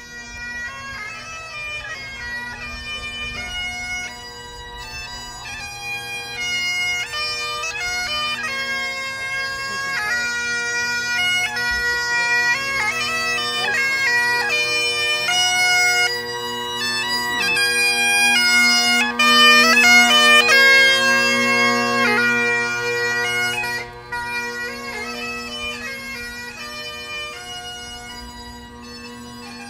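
Bagpipes playing a slow tune over their steady drones, swelling louder toward the middle and dropping off suddenly a few seconds before the end.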